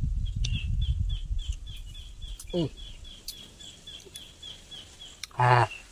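A steady run of short high chirps, about four a second, from something calling in the background, under a low rumble that fades over the first two seconds. Near the end a man gives a short hummed vocal sound while eating something very sour.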